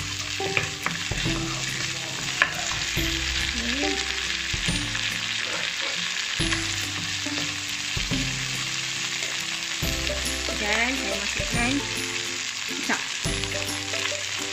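Pounded garlic, shallots and dried anchovies (ikan bilis) with a little oyster sauce sizzling steadily in hot oil in a nonstick wok. A wooden spatula stirs and scrapes through them, with occasional sharp taps against the pan.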